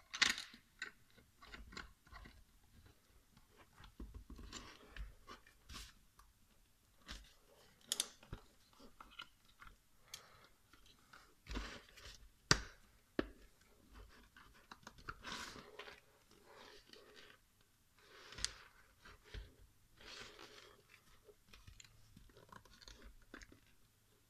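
Plastic clicks, scrapes and rattles of a GoPro camera housing and helmet mount being handled and fitted together. Irregular handling noises with a few sharp clicks, the sharpest just after the start and about halfway through.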